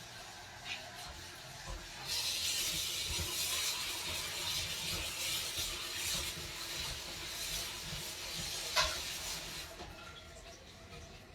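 Food frying in a pan: a crackling sizzle that starts suddenly about two seconds in and dies down near the end, with a single sharp clink partway through.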